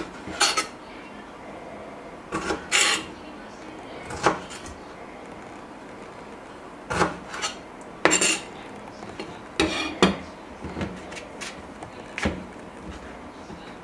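Kitchen utensils and dishes being handled: a dozen or so irregular clinks and knocks with short scrapes, the loudest about 8 and 10 seconds in.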